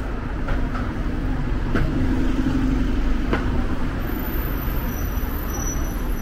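Street traffic: a red single-decker city bus's engine running close by, droning for a second or two in the middle, over a steady low rumble of passing cars. A few light clicks sound within the first few seconds.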